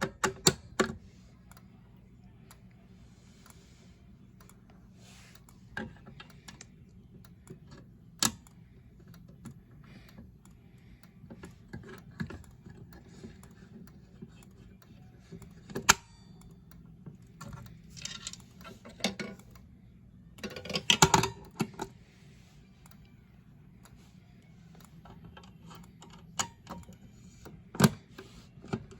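A Siemens MSI-10B/-20B manual fire alarm pull station being worked by hand: scattered sharp plastic and metal clicks and clacks from its handle and housing, with a longer run of rattling clicks about two-thirds of the way through, over a faint steady hum.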